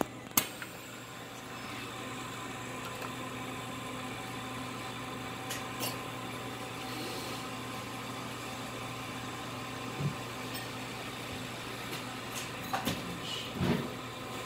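Steady hum of a running helium leak detector's vacuum pump and fan, holding several fixed tones, with a few light knocks and clicks from the valve being handled, the loudest two close together near the end.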